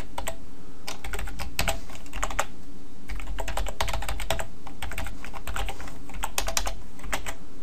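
Typing on a computer keyboard: short irregular runs of keystroke clicks with brief pauses between them.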